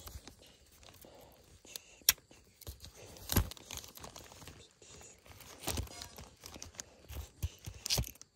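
Swiss Army knife blade cutting through raw potatoes over a plastic zip bag: a few separate crunching cuts and knocks a second or two apart, the loudest about halfway, with the plastic bag crinkling.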